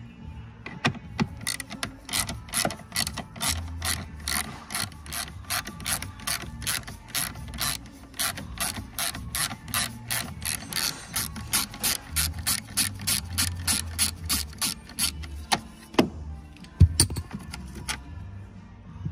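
Hand socket ratchet clicking in an even rhythm, about three clicks a second, as it is swung back and forth to undo a bolt. The clicking stops near the end, followed by two louder single clicks.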